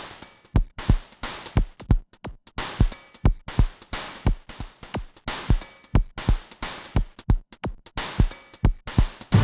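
Drum-machine beat: deep kick drums that drop in pitch, with sharp snare-like hits in a syncopated pattern and no vocals.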